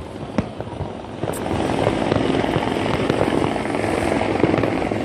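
Fireworks: a few sharp separate bangs, then from about a second and a half in a dense, continuous crackling of many rapid pops.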